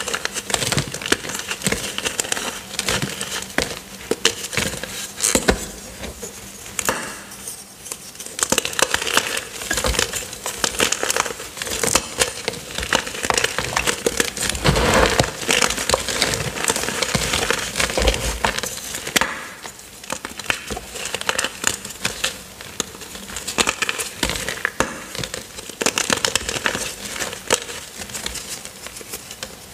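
Hands crushing and crumbling chunks of gym chalk coated in cornstarch: a dense, continuous crunching and crackling as the pieces break apart in the fingers and fall back onto the powder.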